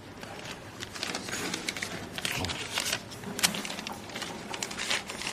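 Paper banknotes rustling and crinkling as they are handled and counted, a run of small irregular crackles and clicks.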